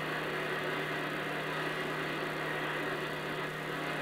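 A shortwave receiver's speaker hissing with band static as the radio is tuned up through the 27 MHz CB channels, with a steady low hum underneath.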